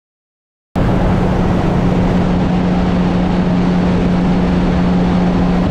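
Honda Gold Wing motorcycle on the move at a steady speed: a steady engine hum under loud wind and road noise. It cuts in abruptly just under a second in.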